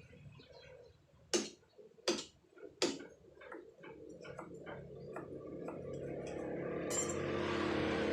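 Hand chisel struck with a hammer into soft paras stone: three loud blows about three quarters of a second apart, then a run of lighter taps.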